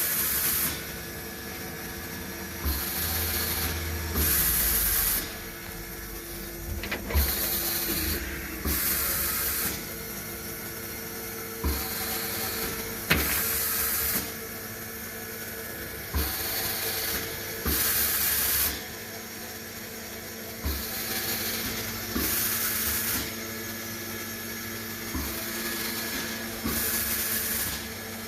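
Steady hum of a running machine with repeated short bursts of hissing, each half a second to a second long, coming every second or two, many opening with a soft thump.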